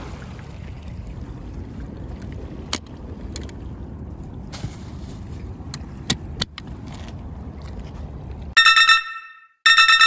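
A steady low outdoor rumble with a few sharp clicks, two close together about six seconds in as a cooler box's lid hatch is snapped open and shut. Near the end come two short, loud electronic chime tones, a sound effect for an animated 'HIT!' card.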